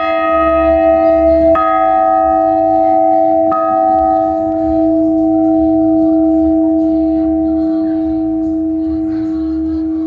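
The great church bell, cast in 1725 by Jan Pricquey, weighing about 150 kg with a strike note of E-flat, is struck three times about two seconds apart. Its deep hum and bright partials then ring on, slowly fading.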